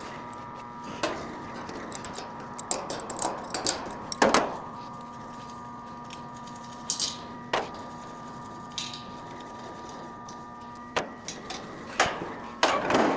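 Metal clinks, taps and scraping of hand tools as a condenser fan motor is unbolted from its mount, with sharp knocks about four seconds in and near the end. Under it runs a faint steady hum.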